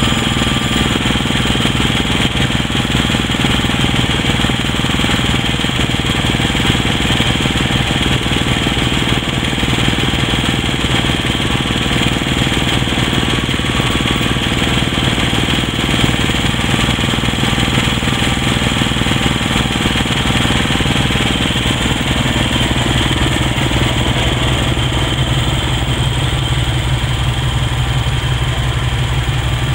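Woodland Mills HM126 portable bandsaw mill cutting through a pine log, its small gas engine running steadily under load with the blade sawing through the wood. About three-quarters of the way through, the cutting noise thins as the blade clears the end of the log, leaving the engine running on.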